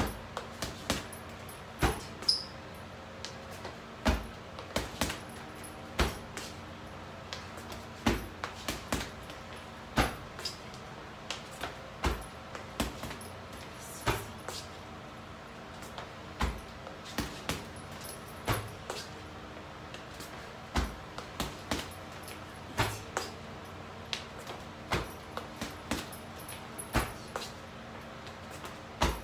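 Gloved punches and kicks landing on a hanging Everlast heavy bag in a steady rhythm: a hard hit about every two seconds, with quicker, lighter strikes in between.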